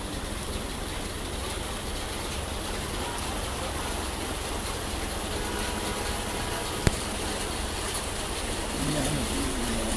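Steady street noise of traffic and water on a rain-flooded street, with a single sharp click about seven seconds in and a person's voice briefly near the end.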